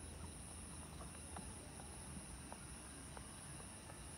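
Faint, steady, high-pitched insect chorus shrilling without a break, over a low rumble.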